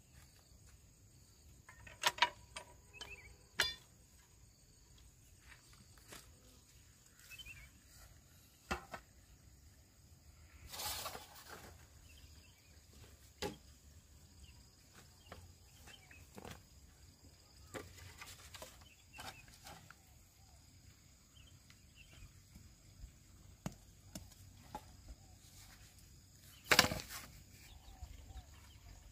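Dry bamboo poles and a machete being handled: scattered sharp, hollow knocks and clatters with long pauses between them, the loudest a couple of seconds in and near the end, and a brief rustle near the middle. A faint steady buzz of insects runs underneath.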